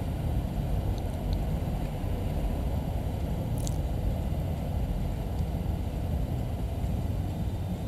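Caterpillar excavator's diesel engine running steadily, a low rumble heard from inside the cab. A light click comes about halfway through as the monitor panel's scroll button is pressed.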